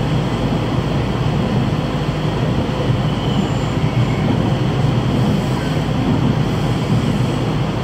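A JR Kyushu train running at speed, heard from inside the carriage: a steady rumble of wheels on the rails with no breaks or changes.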